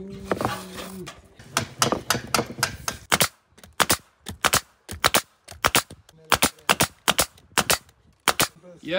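Battery-powered nail gun firing nails through a wooden block into wall sheathing: a quick, irregular run of sharp shots, roughly two or three a second, with short pauses between groups.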